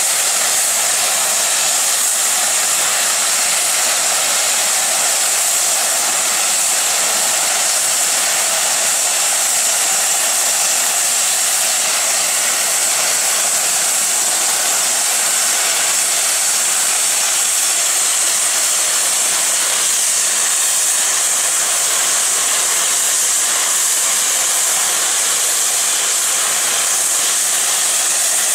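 Safety valves of rebuilt Bulleid West Country class Pacific 34046 Braunton blowing off, a steady, loud hiss of escaping steam: the boiler is at full working pressure and venting the surplus.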